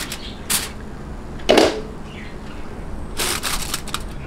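Aluminium foil crinkling in short bursts as it is pressed around a pan, with one louder knock about a second and a half in as a glass pot lid is set over the foil.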